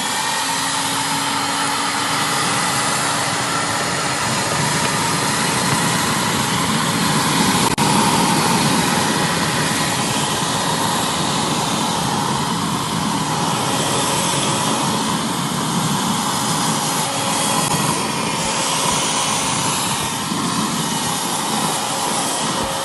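Philips FC6142 handheld wet-and-dry vacuum cleaner running steadily at full suction, its small motor giving a constant whine, as it sucks up spilled water.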